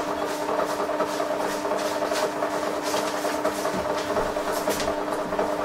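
Sharp XE-A203 cash register's thermal printer running steadily, a continuous mechanical whir as it feeds paper and prints the Z1 electronic journal report that resets a near-full or full EJ.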